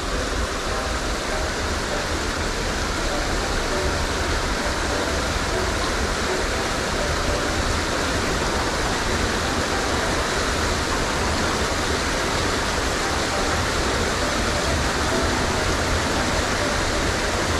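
Steady rush of flowing river water, an even hiss that does not change, with a low uneven rumble underneath.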